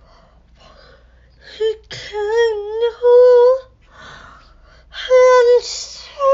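A woman singing long held notes without words: the first, about two seconds in, wavers up and down in pitch before settling, a second comes about five seconds in, and a third begins at the end.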